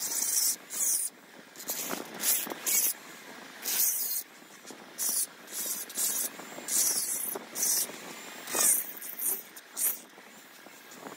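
Short, irregular rasping strokes of a hand file or scraper on the aluminium port edge inside a Yamaha RX135 two-stroke cylinder, a scratchy hiss with each stroke and brief pauses between.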